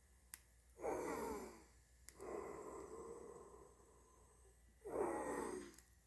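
A dog's vocal sounds: two whining, grumbling calls with falling pitch, about a second in and again near the end, with a fainter drawn-out whine between them.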